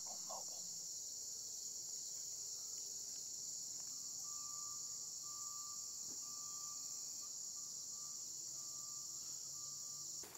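Steady, high-pitched chorus of crickets and other insects, an unbroken shrill hum. A faint broken tone joins about halfway through, and the chorus cuts off abruptly at the very end.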